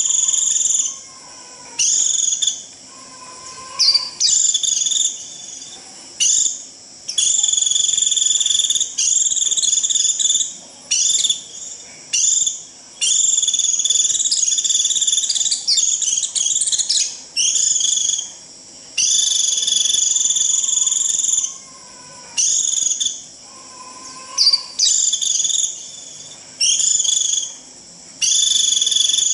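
White-eye (vành khuyên) giving its shrill, buzzy 'rít' flock call: high, even trills of one to two seconds each, repeated with short gaps. It is a flock-gathering call.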